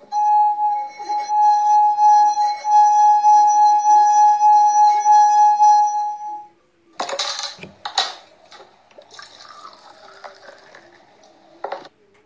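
A singing glass: a finger circling the rim of a stemmed glass of water draws a steady ringing tone with overtones for about six seconds. Then comes a sudden loud rush and fizzing hiss of beer filling the second glass, which cuts off abruptly near the end.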